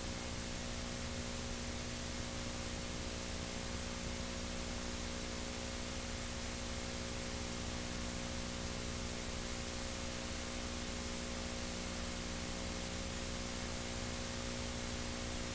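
Steady hiss with a low electrical hum from the playback of a digitized VHS tape's end section, where there is no program sound.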